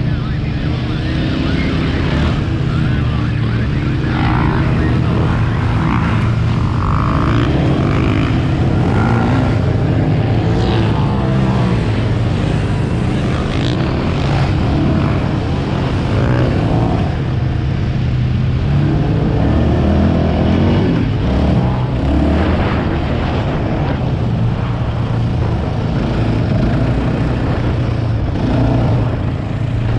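Sport ATV engine running hard across sand dunes, its pitch rising and falling with the throttle, with wind rushing over the microphone.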